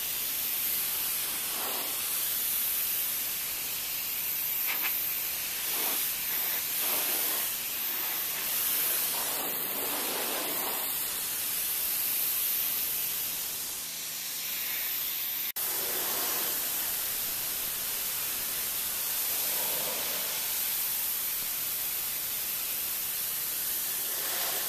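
Pressure-washer spray hissing steadily as the wand's jet strips mildew off wet wooden deck boards. The hiss cuts out once, very briefly, about two-thirds of the way through.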